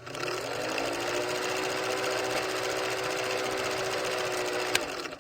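A small motor running steadily with a constant hum, rising slightly in pitch as it starts, then cutting off abruptly, with a single sharp click shortly before the end.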